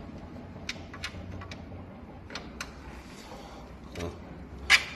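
Screws being fitted by hand into a treadmill's motor mounting: scattered light clicks and taps, with one louder, sharp clack near the end.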